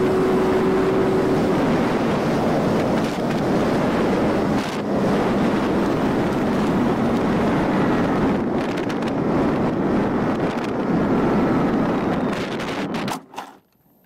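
Battery-powered model UAV in flight, with a steady rushing of air. A steady electric-motor tone fades out about a second and a half in. The noise drops away abruptly near the end.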